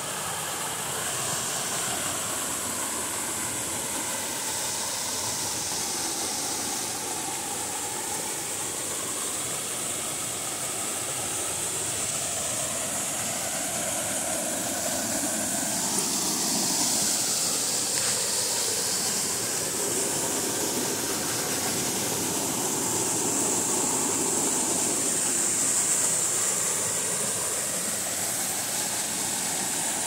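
Two small waterfalls pouring over rock into a pool: a steady rush of falling, splashing water.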